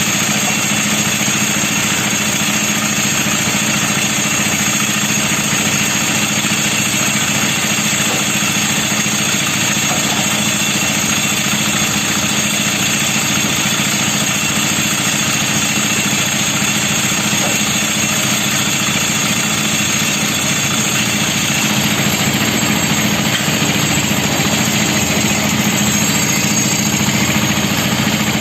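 Portable concrete mixer's engine running steadily at an even speed, a constant drone.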